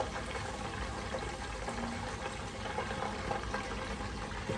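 Tomato and onions sizzling and crackling in oil in a pot on medium-high heat, with a steady frying hiss and many small pops.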